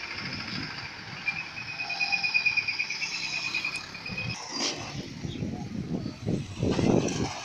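Roadside traffic. A high, pulsing buzz runs through the first half and fades about four seconds in. A small motorcycle then comes by close, its engine growing louder to a peak just before the end.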